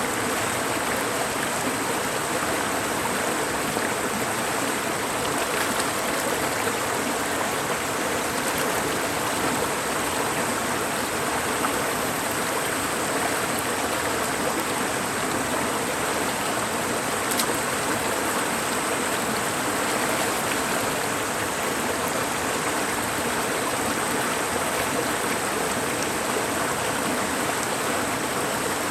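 A mountain valley stream rushing steadily over rocks, a constant full wash of water with no let-up.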